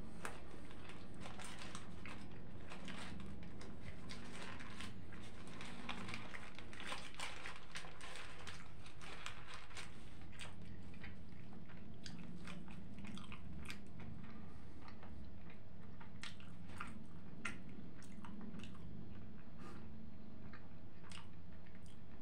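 A person chewing a big mouthful of shawarma close to the microphone: irregular wet smacks and crunching clicks from the mouth, one after another with no pause.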